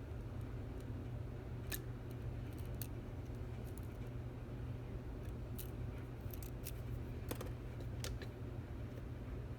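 Lock pick and tension wrench working the pins inside a Stanley 24/7 lock's keyway: scattered small metallic clicks and scrapes, over a steady low hum.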